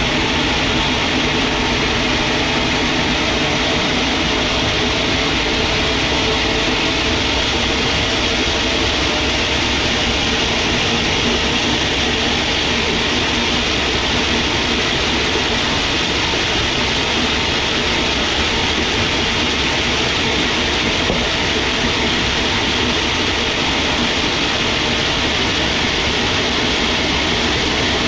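Sawmill machinery running with a steady, unchanging mechanical noise.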